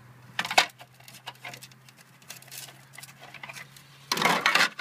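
Thin carbon-fibre drone frame shells clicking and knocking against each other as they are handled and fitted together, with a sharp clack about half a second in and a longer scraping rustle near the end.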